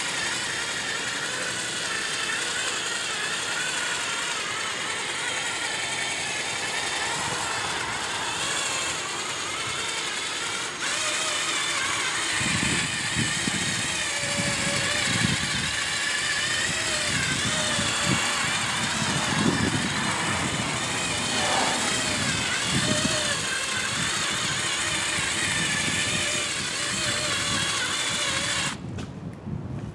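Cordless drill spinning a foam polishing pad against a plastic headlight lens, buffing out haze with polish; the motor's whine wavers as the pressure changes, with heavier low rubbing from about halfway through. The sound cuts off about a second before the end.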